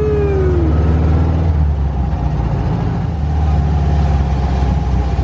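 Dune buggy engine running as the buggy drives along, a steady low drone heard from on board.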